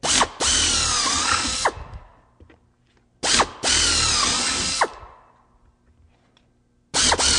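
Single-speed hand drill with a number 30 bit enlarging pilot holes through two layers of aluminum sheet: three short runs of about a second and a half each, a couple of seconds apart, the drill coming straight up to full speed, cutting through and stopping sharply. The third run starts near the end.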